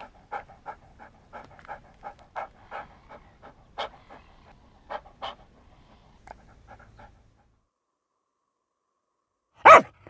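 Bernese Mountain Dog panting in quick, even breaths, about three a second, which stop a few seconds before the end. Near the end a dog barks once, loudly.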